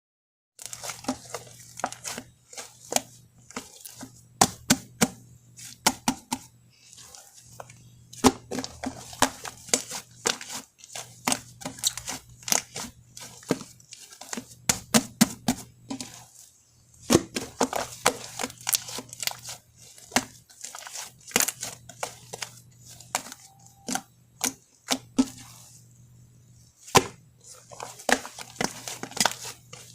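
Shaving-foam slime being squeezed, stretched and poked by hand, giving off irregular bursts of sharp little pops and crackles as air pockets in it burst.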